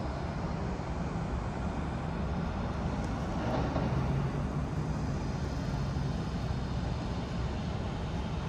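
Steady outdoor background noise with a low rumble, like traffic, swelling slightly a few seconds in.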